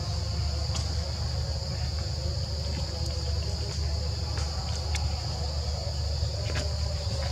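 Steady high-pitched drone of a forest insect chorus, over a low steady hum, with a few faint clicks.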